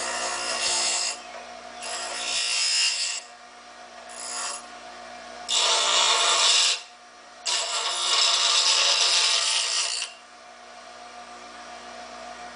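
Bench grinder motor running with a steady hum while an aluminum strip is pressed against the grinding wheel in several harsh grinding passes of one to three seconds each, deburring its sharp cut edges. Over the last couple of seconds only the grinder's hum is left.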